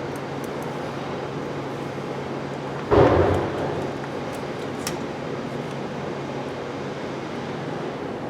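Steady workshop background hiss with a low hum. About three seconds in comes one sudden loud clunk that dies away within a second, followed by a few faint clicks.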